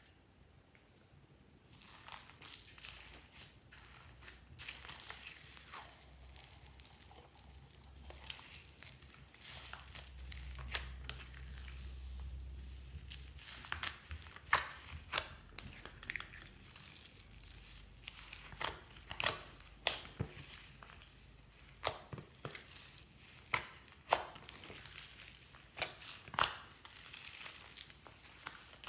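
Slime being squished and worked by hand, a crackly crinkling hiss with many sharp pops and clicks that grow more frequent and louder in the second half.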